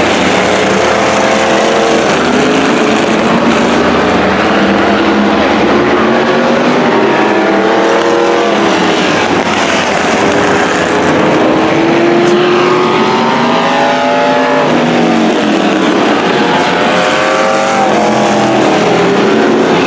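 Several demo race cars and trucks running on the track together, their engine notes overlapping and rising and falling in pitch as they speed up and slow down.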